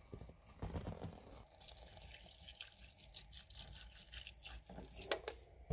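Water poured from a bottle into a pan of corned beef and cabbage on the stove: faint trickling and splashing, thickening about a second and a half in.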